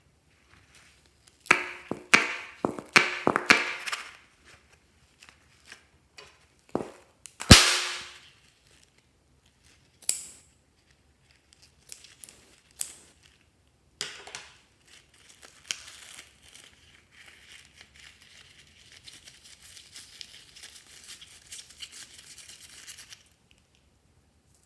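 Clear slime worked by hand, giving a quick run of sharp clicking pops and one louder pop a third of the way in. The second half is several seconds of fine, steady crackling as the slime is squished and kneaded.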